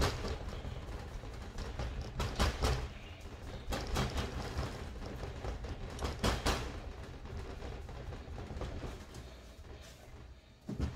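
Pizza dough being pressed and stretched by hand on a cornmeal-dusted board: irregular soft thumps and rustling handling noises over a low rumble, thinning out near the end.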